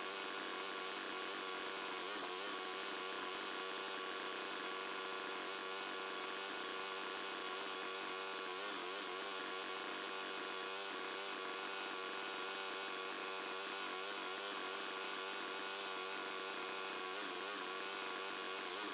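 Small hydraulic log splitter running steadily, its motor and pump giving a constant hum.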